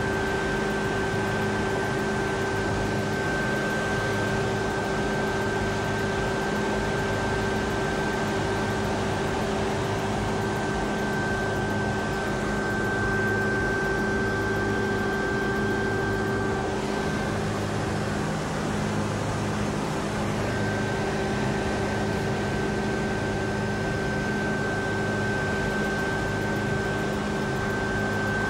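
Steady mechanical drone with a constant high whine over lower hums, running evenly throughout.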